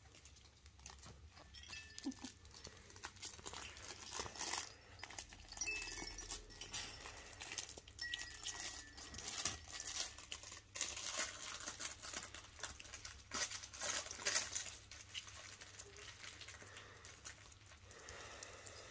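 Four-week-old kooikerhondje puppies scrabbling and rustling about on a play mat among crinkly toys, with irregular clicks and crinkling, busiest in the middle stretch.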